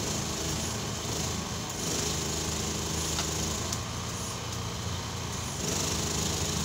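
A three-stage PCP high-pressure hand pump being worked in slow strokes, charging a tank, with a hiss of air that swells and fades with the strokes. A steady low motor hum runs underneath.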